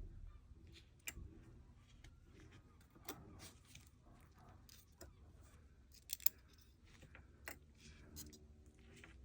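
Faint, scattered clicks and taps of small metal parts and tools being handled while a CO2 replica revolver is stripped down, with a quick double click about six seconds in.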